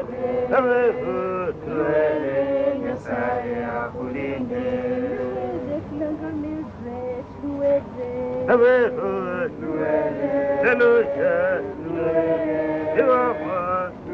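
Several voices singing together in a chant-like style, with held, wavering notes.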